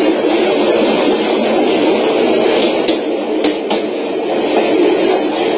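Moving train running on the rails: a steady, loud travelling noise with a few faint clicks partway through.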